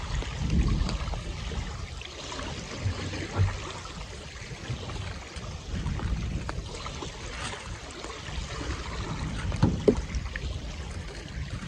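Wind buffeting the microphone in an uneven low rumble, with a few light clicks from handling, one sharper near the end.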